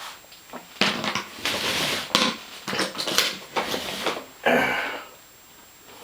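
Irregular clattering, knocks and scraping of hard objects being handled, with several sharp clicks, then a quieter stretch near the end.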